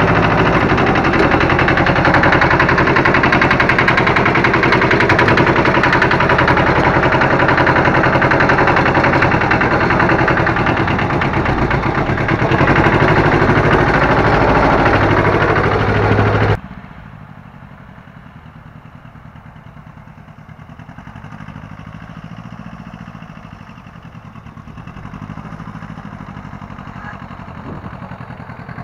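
Small Honda tractor's diesel engine running, heard loud and close from inside the cab just after a cold start on glow plugs. About 16 seconds in the sound drops suddenly to the same engine heard much more faintly from a distance.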